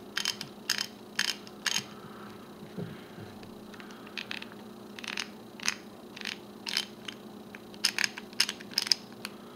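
Freshly cleaned and lubed Proto 5449 half-inch-drive ratchet clicking as its drive is turned by hand: a run of sharp pawl clicks, about two a second. It sounds pretty good.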